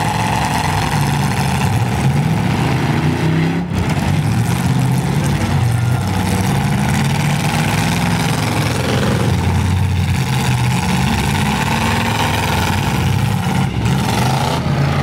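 Engines of several demolition derby pickup trucks running and revving, their pitch rising and falling.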